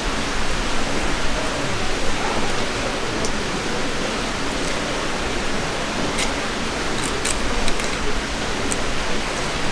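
A knife filleting a yellowtail along its backbone, with a few small sharp clicks of the blade on bone about two-thirds of the way in. Under it runs a steady rushing background noise.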